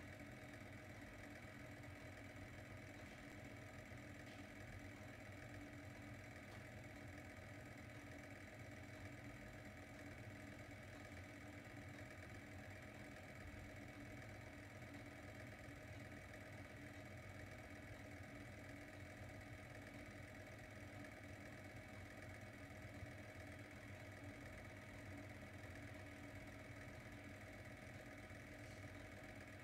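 Faint steady hum of a 1970s Crestworth Galaxy fibre-optic lamp running, its motor-driven colour wheel turning.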